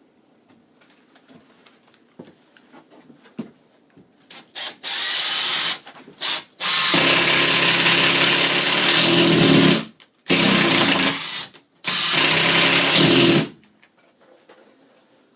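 Cordless impact driver driving a Phillips-head screw into cement backer board: a few short trigger pulls, then three longer runs of several seconds each, stopping about two seconds before the end.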